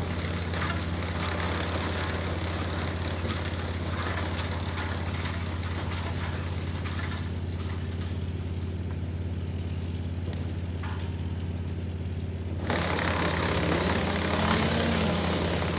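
Wood chipper's engine running steadily with a low hum. Near the end a louder, rushing chipping noise breaks in suddenly as the machine takes on wood.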